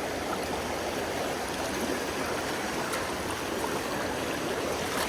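Creek water flowing, a steady, even rushing.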